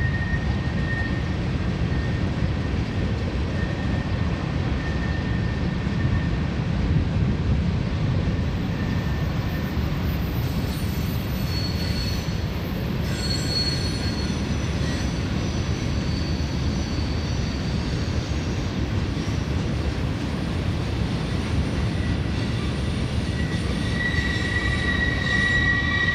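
Loaded hopper freight train rolling past: a steady rumble of wheels on rail, with thin, high wheel squeals that come and go and grow stronger near the end.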